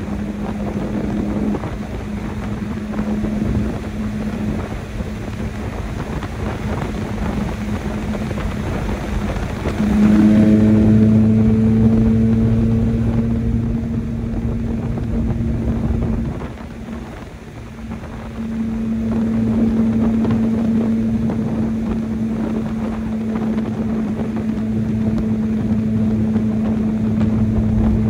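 Stock four-cylinder engine of a Chevrolet S10 pickup running steadily under way, with a hum of wind and road noise. The engine note gets louder about a third of the way through, drops away briefly a little past halfway, then comes back steady.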